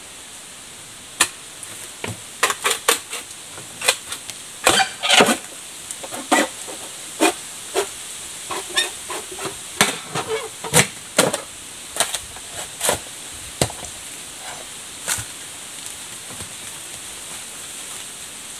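Bamboo poles knocking and clacking together as they are handled and fitted into a shelter frame: a string of sharp, irregular knocks, busiest in the first two-thirds, over a steady high hiss.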